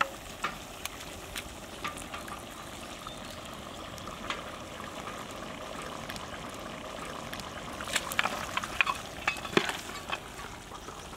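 Mutton curry sizzling and bubbling in a large pot, with a metal spatula scraping and clicking against the pot as it is stirred. The clicks come thicker near the end.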